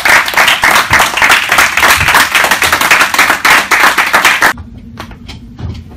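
A small group of people applauding, a dense patter of many hands clapping that stops abruptly about four and a half seconds in, leaving only a few stray claps.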